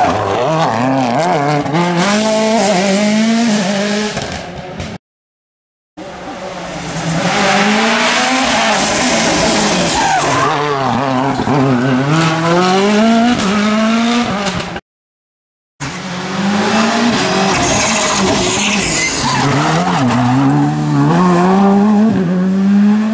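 Rally cars powering through a hairpin, their engines revving hard, the pitch climbing and dropping back again and again with the gear changes. The sound is in three passes, broken twice by about a second of silence.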